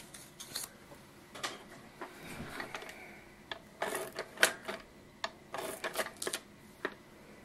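Paper rustling on a cutting mat, then an ATG adhesive tape gun run over a paper cutout: a run of sharp, irregular clicks and short scrapes from about halfway in as it lays down tape.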